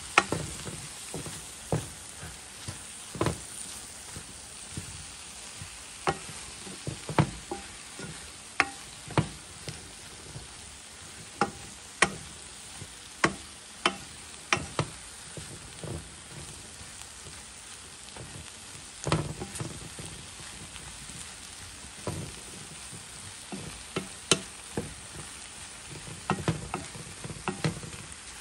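Okra and other vegetables sizzling in a pot with a steady hiss, while a wooden spatula stirs them, knocking and scraping against the pan at irregular intervals.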